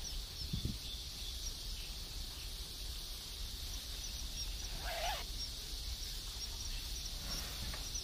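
Lakeside countryside ambience: a steady high chirring with faint repeated chirps over a low wind rumble. A single short bird call rises and then falls about five seconds in.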